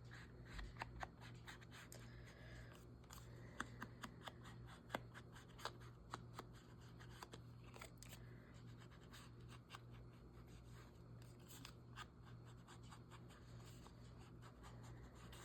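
Faint small clicks and light paper rustles of hand paper-craft work, cutting and handling card stock, over a steady low hum.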